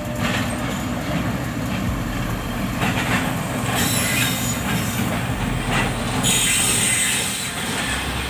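Karakoram Express passenger train pulling slowly into a station: the coaches rumble past, their wheels knocking over rail joints at uneven intervals. Several bursts of high wheel squeal come through, the longest near the end.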